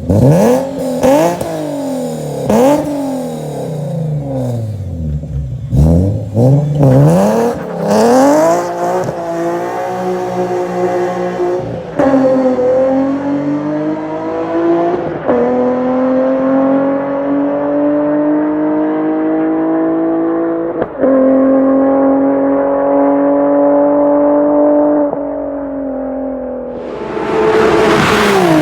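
Infiniti G37S's VQ37VHR V6 through a Greddy RS single-exit exhaust and long-tube headers, blipped several times in quick revs, then pulling up through the gears, its pitch climbing and dropping sharply at each of three shifts. A loud rushing noise comes in near the end.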